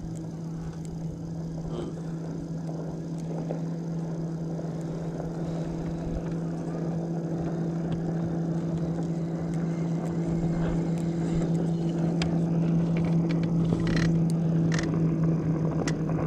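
Boat motor running steadily with a low, even hum that slowly grows louder, with a couple of clicks near the end.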